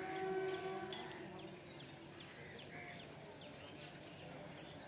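A distant train horn holding one steady note, cutting off about a second in, as a train approaches the level crossing. Small birds chirp throughout.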